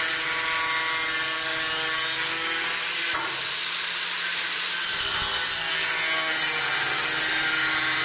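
Angle grinder cutting through a metal drip sill strip: a continuous cutting noise with steady whining tones, held under load without a break.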